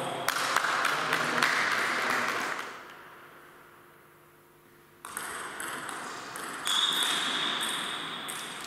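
Celluloid-type table tennis ball clicking sharply off paddles and the table, ringing in a reverberant sports hall. A run of quick hits comes first, then a quiet gap, then another short spell of clicks about five seconds in.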